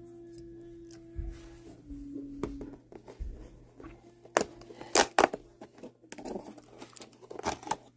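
Paper or card packaging being torn and crinkled open, with several sharp clicks and snaps.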